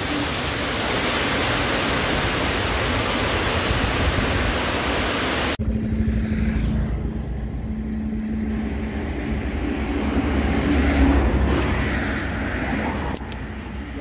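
A steady rushing hiss that cuts off suddenly about five and a half seconds in. It gives way to a motor vehicle's engine hum and low road rumble, which swell as the vehicle passes around ten to eleven seconds in.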